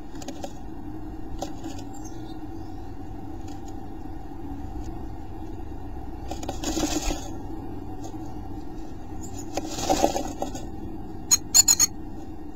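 Carolina chickadee moving inside a wooden nest box, scratching and rustling in the moss nest material in two short bursts over a steady low hum, then a quick run of sharp clicks near the end.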